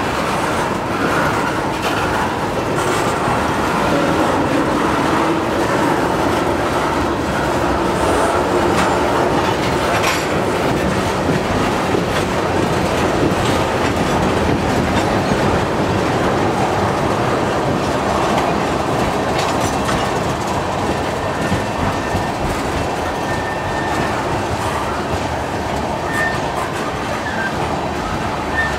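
CN freight train of tank cars and covered hoppers rolling past: steady rumble and clatter of steel wheels over the rails, with brief thin wheel squeals now and then in the second half.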